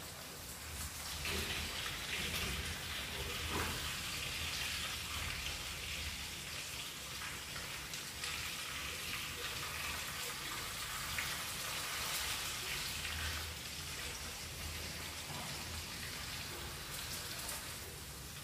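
Hot oil sizzling and spattering in a frying pan around a spice-coated salmon fillet being shallow-fried. It is a dense crackling hiss that grows louder about a second in and eases off a little near the end.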